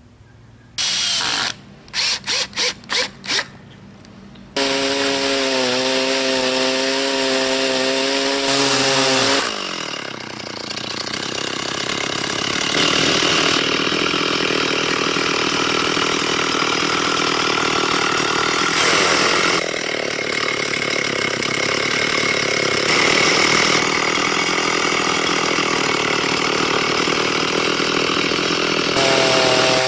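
Stihl MS360 chainsaw: a few short bursts of engine noise, then idling for about five seconds. About ten seconds in it goes to full throttle and cuts lengthwise through a bur oak log on a mini chainsaw mill for some twenty seconds, then drops back to idle near the end.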